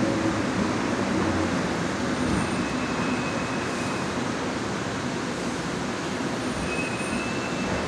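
Trensurb Série 100 Hitachi electric train running, heard on board: a steady rumble of wheels and traction equipment. The motor tones fade out in the first second or so, and the rest stays an even rolling noise.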